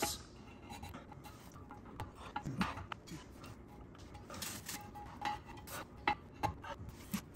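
Clutch pressure plate clinking and tapping against the flywheel as it is shifted by hand onto its locating pins: scattered, irregular light metallic knocks.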